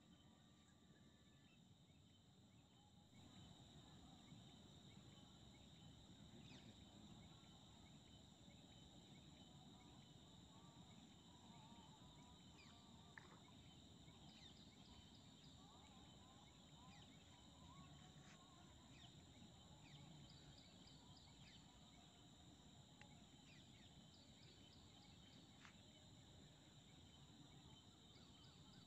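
Near silence: faint outdoor ambience with a steady high insect drone and scattered short chirps, over a low hiss that grows slightly a few seconds in.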